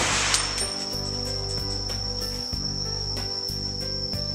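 Steady high-pitched insect drone from cicadas or crickets, with a low rumble underneath and a few faint ticks. The echo of a rifle shot fired just before dies away at the start.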